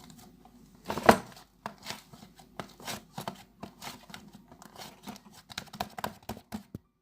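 Handling noise: an irregular run of small clicks, taps and rustles, with one louder knock about a second in, cutting off abruptly just before the end.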